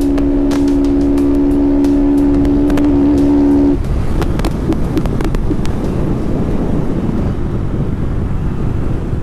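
Honda CG 160 Start's single-cylinder four-stroke engine, fitted with a tin aftermarket exhaust and no air filter, holding a steady drone while cruising. About four seconds in the throttle closes and the note drops suddenly into an uneven rumble.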